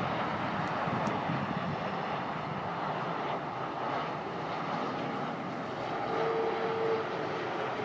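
Airbus A330 jet airliner on final approach passing low overhead, its engines giving a steady jet noise as it goes by.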